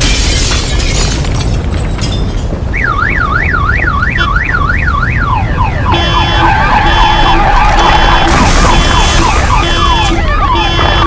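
Loud rushing, rumbling noise, then an emergency siren yelping rapidly up and down from about three seconds in. About six seconds in it is joined by several overlapping sirens with falling sweeps and steadily pulsing alarm tones, like car alarms, all over a continuing low rumble.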